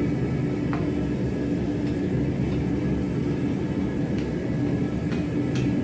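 Forge running with a steady rushing roar and a low hum, with a few faint sharp metallic ticks, more of them near the end.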